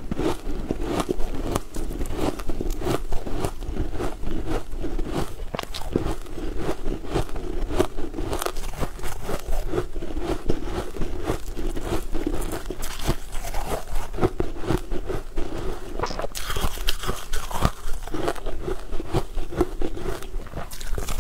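Close-miked eating: biting and chewing a crumb-coated spongy cake, with many small crackly mouth clicks at an uneven pace.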